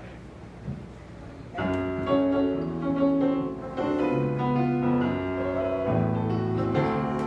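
Piano playing the introduction to a song, chords and a melody line starting about a second and a half in.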